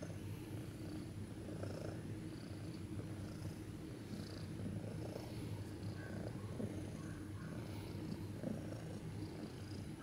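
A 20-year-old cat purring steadily as it is stroked on the head.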